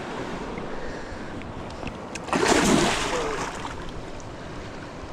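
River rapids rushing steadily, with a short, louder burst a little over two seconds in.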